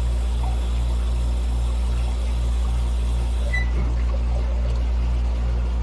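Steady low machine hum with a regular throb about two and a half times a second, and a faint trickle of water.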